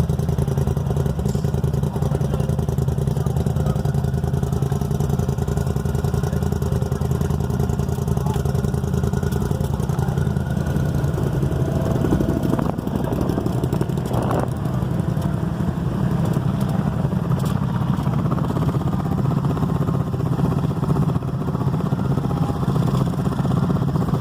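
ATV engine running steadily at a low, even speed.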